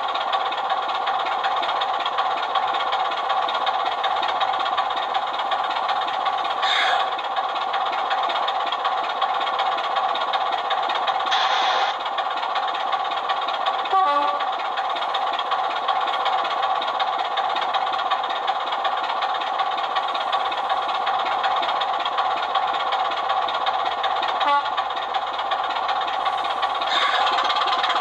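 Sound decoder in a Sutton's Loco Works Class 24 model locomotive playing a Sulzer diesel engine sound through its small on-board speaker, a steady burbling engine note. A few brief louder sounds break in over it.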